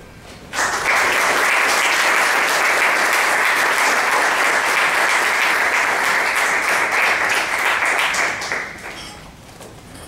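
Audience applauding: the clapping starts suddenly about half a second in, holds steady, and dies away after about eight seconds.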